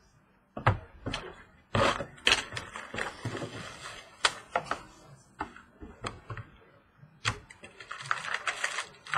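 Trading cards being handled on a table: a run of sharp plastic clicks and taps, with two spells of sliding and rustling, about two seconds in and again near the end.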